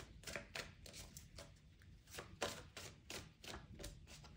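Tarot cards being shuffled and handled, a faint, quick, irregular run of soft snaps and rustles.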